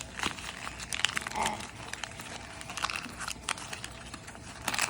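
Packaging crinkling and rustling in irregular crackles as it is handled and opened to get at a fidget cube.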